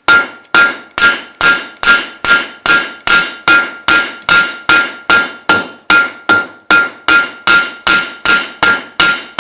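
Cross-peen hammer striking hot 3/8-inch square steel stock on an anvil in a steady rhythm of about two and a half blows a second, each with a bright metallic ring. The peen is spreading the flattened end sideways into a leaf shape.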